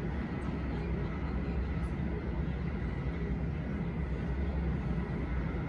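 Steady low rumble of jet aircraft engines, holding level with no rise or fall.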